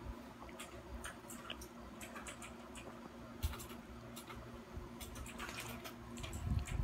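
Faint wet clicks and smacks from chihuahuas' mouths: a puppy mouthing a hand, then its mother licking its face near the end, when the clicks get a little louder. A steady low hum runs underneath.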